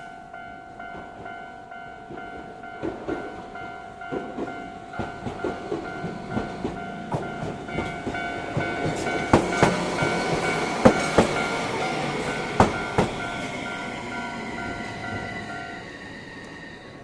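Level-crossing warning bell ringing in a steady repeating pattern as a two-car Tokyu Setagaya Line 300 series tram passes over the crossing, its wheels knocking over the rail joints, loudest about two-thirds of the way in. A high whine slowly falls in pitch as the tram passes, and the bell stops shortly before the end.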